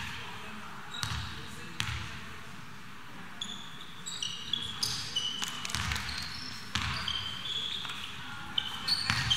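A basketball bouncing on the court floor, with a few thuds in the first two seconds. From about three and a half seconds in, many short, high sneaker squeaks are mixed with more ball thuds as play moves around the court.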